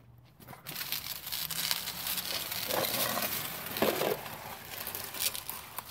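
Scraping and crinkling as an oil drain pan on a sheet of cardboard is dragged across a concrete garage floor, with a couple of heavier scuffs partway through.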